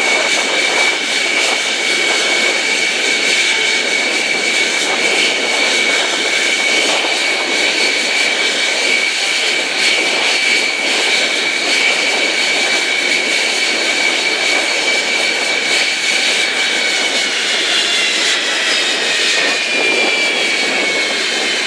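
Lockheed U-2's F118 turbofan jet engine running at idle with a steady high whine and rushing noise; from about 17 seconds in the whine falls steadily in pitch as the engine spools down at shutdown.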